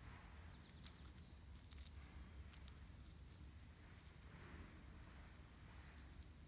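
Near silence, with a faint steady high-pitched insect chorus. A few short sharp clicks come in the first three seconds.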